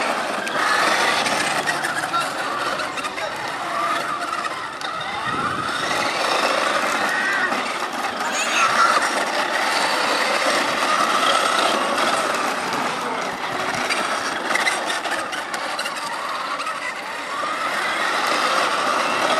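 Child's battery-powered ride-on go-kart driving over rough asphalt: its hard plastic wheels rolling and rattling over the surface, with a small electric motor running. The clattering runs on steadily.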